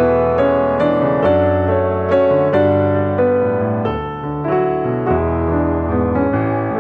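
Background piano music: a gentle keyboard tune with notes struck at a steady pace.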